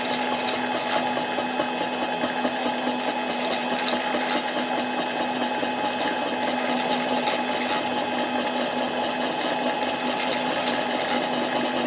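Harbor Freight 7x10 mini lathe running at slow speed with the tool taking a light two-thousandths cut on a Husqvarna 372 chainsaw cylinder: a steady motor and gear whine with the chatter of the cut. The cut sounds even, which the machinist takes as the part coming true.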